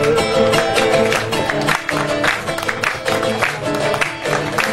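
Instrumental interlude of an Argentine folk song: acoustic guitar strumming in a quick rhythm, with the tail of a sung held note fading in the first moment.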